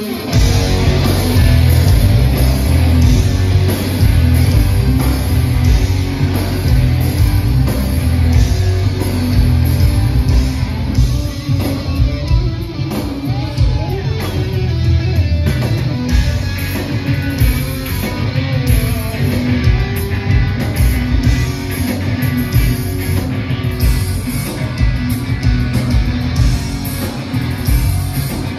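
Rock band playing live and loud: electric guitars, bass and drums come in together all at once at the start and keep going.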